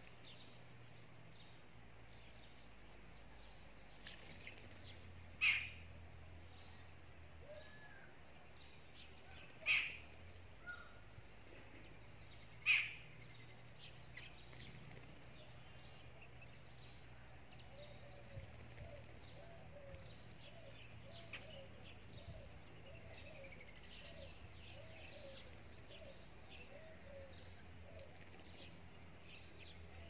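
Several birds chirping and calling in short quick notes, with three much louder calls about five, ten and thirteen seconds in, and a run of lower repeated notes in the second half.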